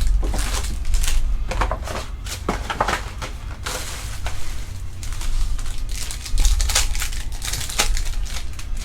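Plastic trading-card packaging crinkling and tearing in irregular rustles, with cardboard being handled as a sealed box of card packs is opened.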